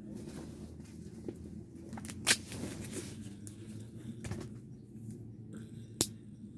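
A folding pocket knife being handled, with soft rustling and two sharp clicks of its metal parts as the blade is worked open: a louder click about two seconds in and another near the end.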